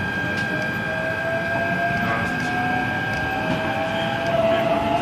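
E129 series electric train accelerating, its Toyo IGBT VVVF inverter and traction motors giving a whine that climbs in pitch in steps over the rumble of the running gear. A steady higher tone fades out about four seconds in.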